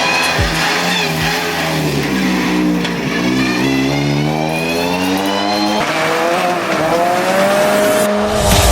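Race car engine on track, its pitch dipping and then climbing steadily for several seconds as it accelerates.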